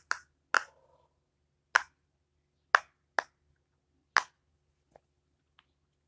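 Silicone flower-shaped pop-it fidget toy being pressed on its good side, a sharp pop with each bubble: about eight pops at irregular intervals, the last two faint.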